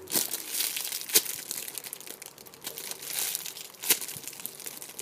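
Plastic packaging bag crinkling as a squishy toy is handled inside it, with a couple of sharper crackles about a second in and near the end.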